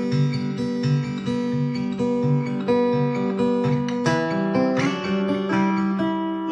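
Acoustic guitar played through a Genzler Acoustic Array Pro acoustic amplifier: a steady, evenly repeating picked pattern, with the chord changing about four seconds in.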